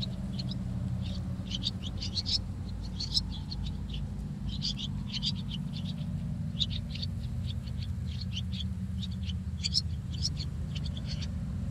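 Birdsong-like chirping in short, rapid clusters of high notes, repeating every second or so, over a steady low hum.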